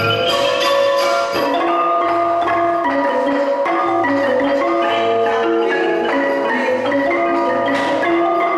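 Music led by xylophone-like mallet percussion playing quick melodic runs over a steady low drum beat.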